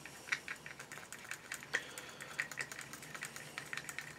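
Wooden cocktail stick stirring thinned lacquer paint in a small plastic medicine cup: irregular light clicks and taps of the stick against the cup, several a second.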